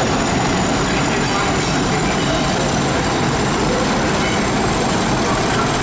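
Pair of Class 50 diesel locomotives, each with an English Electric 16-cylinder engine, passing at close range with a train. Engine noise and wheels on the rails form a loud, steady rumble.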